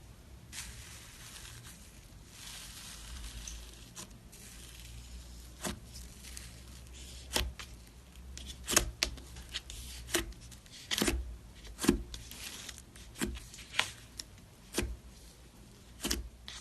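Slime being handled by hand: a faint rustle, then from about five seconds in a run of sharp, irregular clicks and pops as it is squeezed and pressed.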